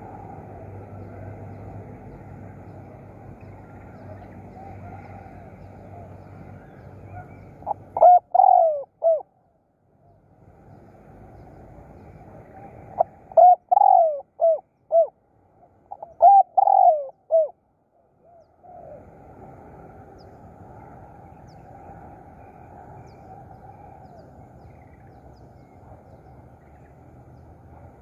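Spotted dove cooing: three phrases, about 8, 13 and 16 seconds in, each a run of short notes falling in pitch. A steady low background noise comes before and after.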